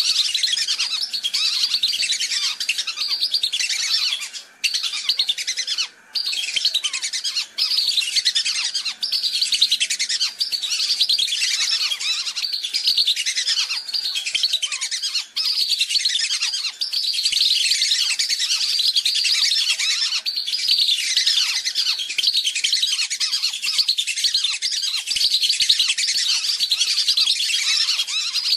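A dense chorus of whistling ducks (belibis): many shrill, short, falling whistled calls overlapping without pause, with a few brief gaps in the first several seconds. It is a recorded lure call for drawing in wild whistling ducks.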